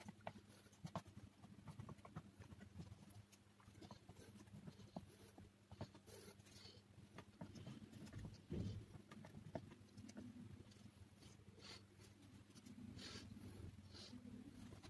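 Near silence: faint scattered scrapes and small clicks of a tool spreading texture paste on a painting board, over a low steady hum.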